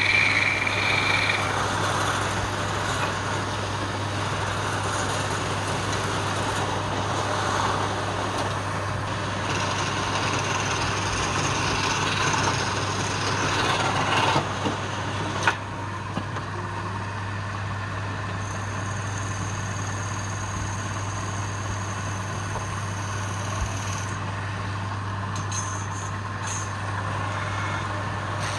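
Wood lathe running with a steady motor hum under a broad hiss. A sharp click comes about halfway through, after which the hiss is quieter.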